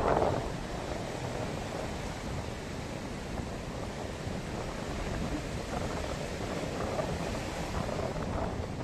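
Ocean surf washing on a beach, with wind buffeting the microphone in a low rumble. A wave's wash fades within the first half second, leaving a steady hiss of surf that swells again near the end.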